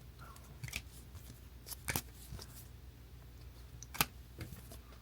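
Sports trading cards being handled and flipped through: a few soft rustles and light clicks, the sharpest about four seconds in, over a low steady hum.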